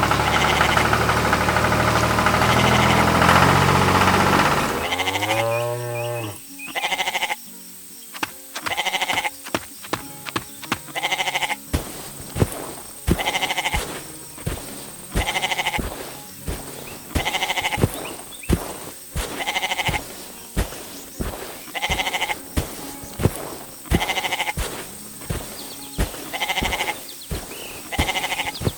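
A tractor engine runs steadily for the first few seconds, then winds down. After that comes cartoon music with a steady beat and repeated sheep bleats, about one a second.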